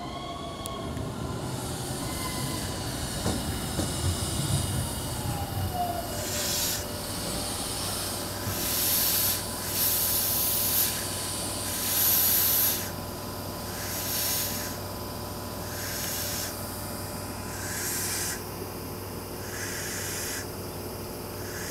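Nankai 50000 series Rapi:t electric train running slowly through the station. In the first seconds there is a falling whine from its motors over a low rumble of wheels on rail. From about six seconds in come short bursts of air hiss every couple of seconds, over a steady low hum.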